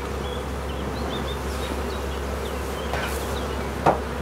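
Honeybees buzzing on the comb: a steady hum of many bees, with a short click near the end.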